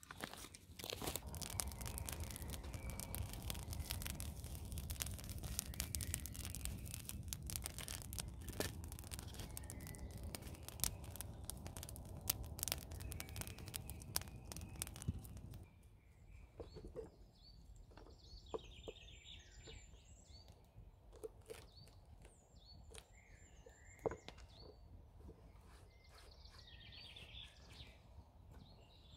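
A wood campfire burning, crackling and popping over a low rumble for about the first half. Then it cuts to quieter birdsong, with chirping calls and an occasional knock.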